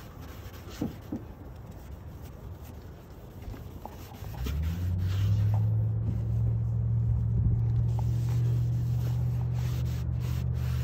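Faint scrubbing of a lemon half with baking soda on a plastic headlight lens, with a few light clicks about a second in. About four seconds in a steady low hum starts and becomes the loudest sound.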